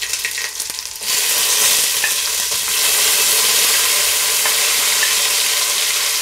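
Sliced onions sizzling as they are pushed into hot ghee and oil. The hiss jumps up sharply about a second in as most of the onions hit the fat, then holds steady, with a few faint spatula taps.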